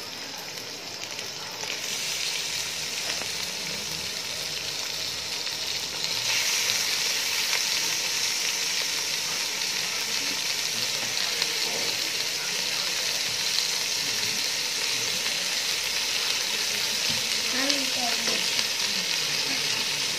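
Raw chicken pieces sizzling in hot oil with fried onions in an aluminium pot. The sizzle gets louder in two steps, about two and six seconds in, as the chicken goes in, and a spoon stirs the pot near the end.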